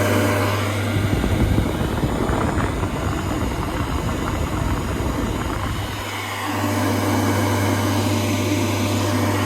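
Blower fan of a DIY ice-chest air cooler running with a steady low hum; from about one to six seconds in the hum gives way to a rough, uneven rumbling rush of air.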